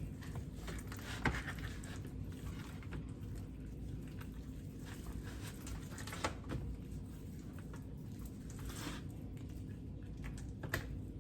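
Gloved hands rubbing dry rub into a rack of ribs: faint soft rubbing and patting with a few light clicks, over a steady low hum.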